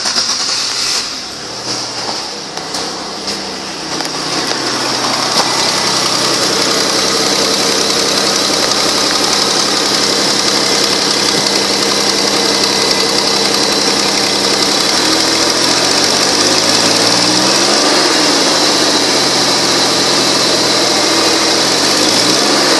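2003 Buick Rendezvous's 3.4-litre V6 running just after start-up, uneven for the first few seconds and then idling steadily. Twice near the end the engine speed rises and falls, as in brief blips of the throttle.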